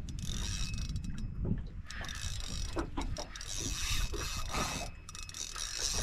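Spinning reel being cranked steadily as a hooked fish is wound in, its gears whirring and ticking, over low wind rumble on the microphone.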